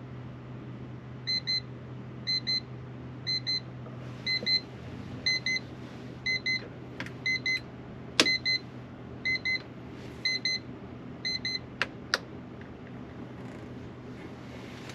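Electronic alarm beeping in quick double beeps, about one pair a second, starting just over a second in and stopping after about ten seconds, with a few sharp clicks near the end. A steady low hum runs underneath.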